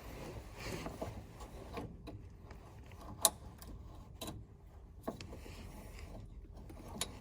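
Scattered metallic clicks and clinks as parking brake cable hardware, the cable end and its retainer ears, is worked loose by hand; one sharp click a little over three seconds in is the loudest.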